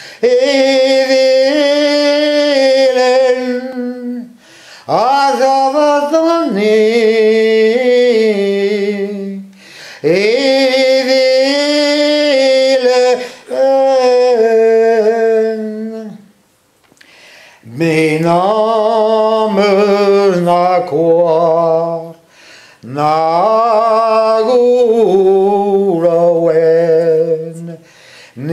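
A man singing a Breton song solo and unaccompanied, in phrases of long held notes separated by short pauses for breath.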